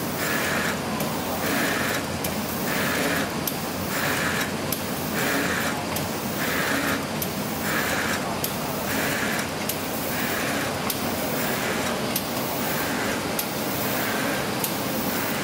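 Pama Octans 126WS paper sheeter running: a steady mechanical drone with a regular swishing pulse about three times every two seconds and faint high clicks. The pulse fades in the last few seconds.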